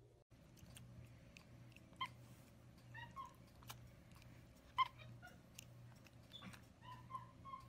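Capuchin monkey giving short, high squeaky chirps several times, faint, with scattered soft clicks between them.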